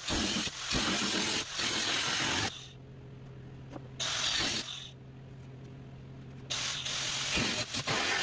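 Angle grinder with a thin cut-off wheel cutting through the sheet steel of a 1953 Chevy truck cab in three stretches. Between the cuts, about two and a half seconds in and again around five seconds in, it runs free and quieter with a steady hum.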